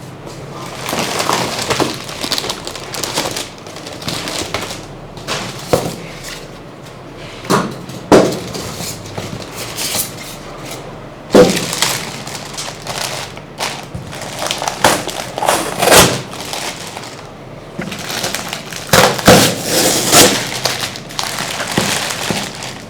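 Printer packaging being handled and pulled apart during an unboxing: rustling and scraping with scattered sharp knocks, the loudest about eleven seconds in.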